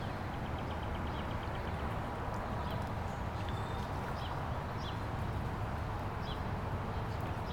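Rain falling steadily, an even wash of noise with scattered short high ticks and chirps over it.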